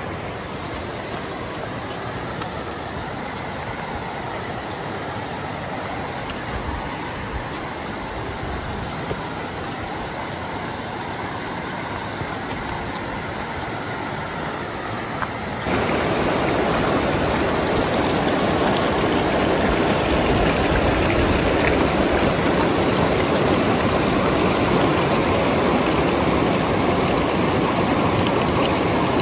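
Steady rush of flowing water, like a mountain creek. A little past halfway it jumps abruptly louder and brighter and then holds steady.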